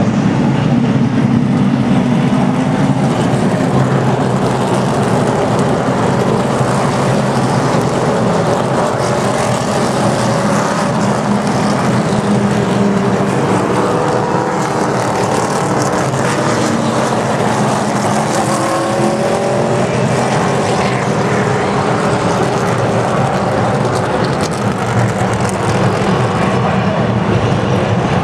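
A pack of NASCAR race trucks' V8 engines running loud and steady as the field goes by, the pitch shifting as the trucks pass.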